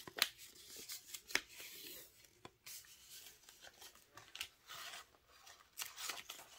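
Faint rustling and scattered light clicks of a roll of washi tape being handled and a strip peeled off and laid on paper.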